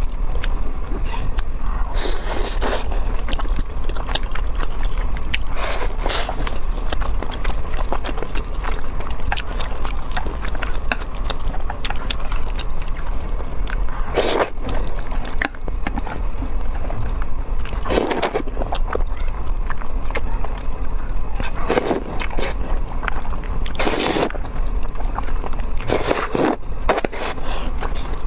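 Close-miked eating of sticky Buldak fire-chicken noodles: steady wet chewing, broken about eight times by short loud slurps. A steady low hum lies under it all.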